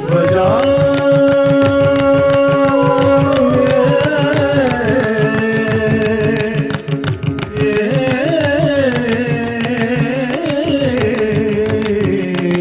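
Carnatic music accompaniment for Bharatanatyam: a melodic line holds one long note, then moves into gliding, ornamented phrases over a dense, steady percussion beat.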